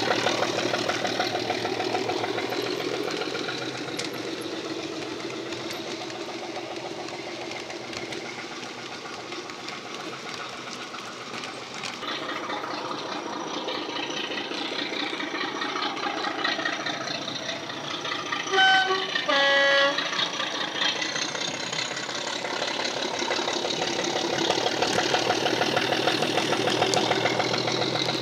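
Model Class 37 diesel's DCC sound decoder playing a Ruston engine sound through a large EM1 speaker. The engine note fades as the loco moves away, then grows louder again as it comes back. About two-thirds of the way through a two-tone horn sounds, a short high note then a longer low one.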